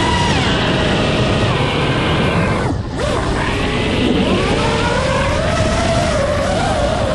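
Brushless motors and propellers of an iFlight Nazgul5 V2 5-inch FPV quadcopter whining, the pitch rising and falling with throttle over a rough rush of air. About three seconds in, the whine drops away for a moment, as on a throttle cut, then climbs back.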